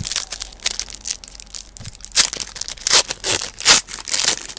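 Trading card pack wrapper being torn open and crinkled by hand in a string of irregular rustling, crackling bursts, loudest in the second half.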